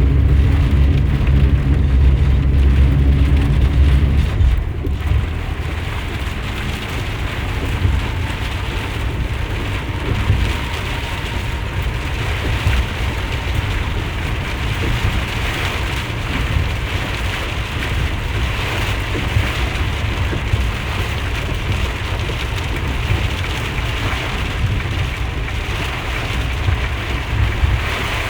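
Heavy rain drumming on a 2020 RAM Promaster van as it drives, over a low engine and road drone. The drone is strong for the first few seconds, then drops off about five seconds in, leaving mostly steady rain noise over a lower rumble.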